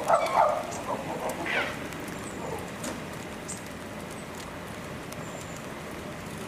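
Chimpanzees calling: a few loud short calls in the first half-second and one brief higher call about a second and a half in, then the calls stop.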